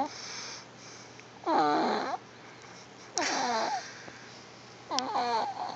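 Baby snoring in time with its breathing: three short, pitched snores about a second and a half apart, each about half a second long.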